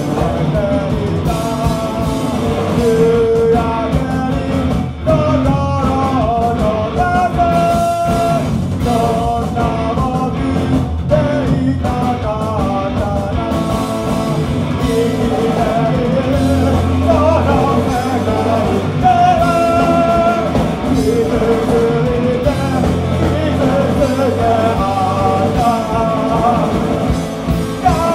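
A live rock band playing: sung lead vocals over electric guitar, bass guitar and drums, loud and unbroken.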